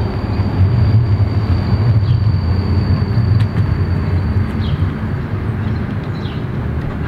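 Articulated tram running slowly toward the listener: a steady low rumble with a thin high whine that cuts off about four and a half seconds in.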